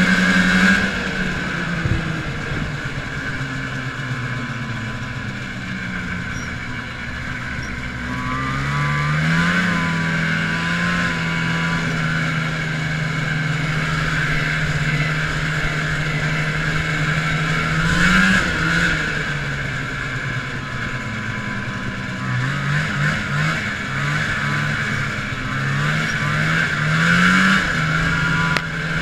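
A 1980 Arctic Cat Panther 440 snowmobile's fan-cooled two-stroke twin running under way, heard from the rider's seat. The engine note drops about a second in, builds again around eight to ten seconds and holds steady. From about twenty-two seconds the throttle is blipped on and off repeatedly, the pitch jumping up and down.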